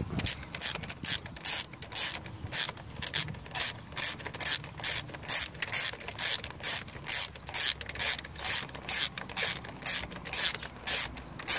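Socket ratchet with a 13 mm socket on an extension, clicking in short, evenly repeated strokes, about two a second, as a nut on a diesel injector is loosened.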